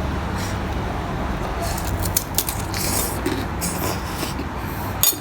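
Eating sounds: short crackling crunches and slurps over a steady low hum, with a sharp click near the end.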